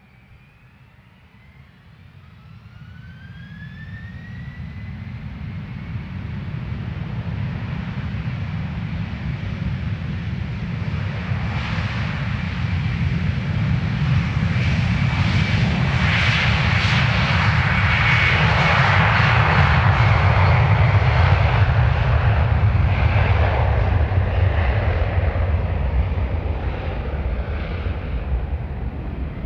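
Boeing 767-400ER's twin turbofan engines at takeoff power during the takeoff roll. A rising whine in the first few seconds builds into a loud, deep roar that is loudest as the aircraft passes, then eases slightly as it moves away.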